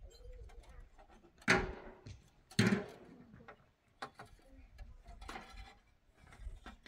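Two loud knocks about a second apart, then a few lighter taps, from wooden boards being handled.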